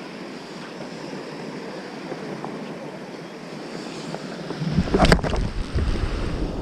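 Small waves washing up on a sandy beach under a steady wash of wind. About five seconds in, a brief loud whoosh is followed by low rumbling wind buffeting on the microphone while the surf-casting rod is raised.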